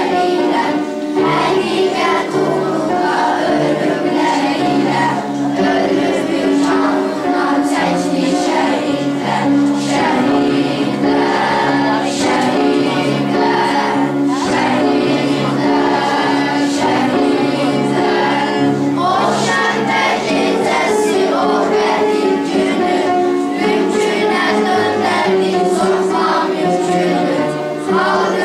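Children's choir singing a song, continuously.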